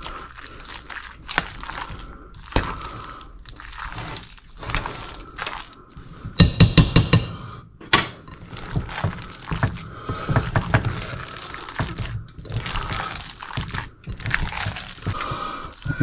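A wet fish-cake mix of flaked bluefish, egg and breadcrumbs being worked by hand in a ceramic bowl: irregular wet squishing and scraping. A quick rattle of sharp clinks comes about six and a half seconds in.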